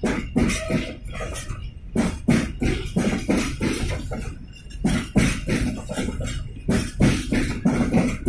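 Container freight train's flat wagons rolling past close by, the wheels knocking and clattering in uneven strokes several times a second over a steady low rumble.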